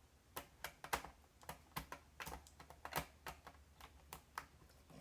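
A run of light, irregular clicks and ticks as a small screwdriver turns a keyboard-retaining screw into the underside of a Lenovo ThinkPad T430s laptop.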